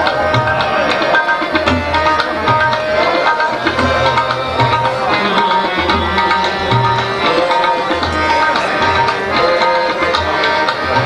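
Tabla and harmonium playing an instrumental passage of a ghazal: held reed notes over tabla rhythm, with deep booming strokes from the bass drum.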